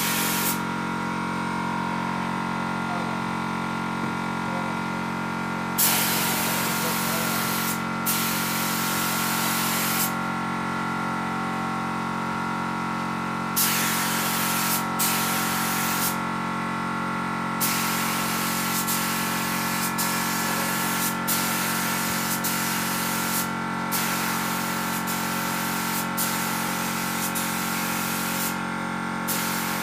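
Compressed-air spray gun hissing in bursts as the trigger is pulled and released, spraying PU wood polish. The first bursts come a few seconds in, and later the hiss runs nearly continuously with brief breaks. A steady machine hum, likely the air compressor feeding the gun, runs underneath throughout.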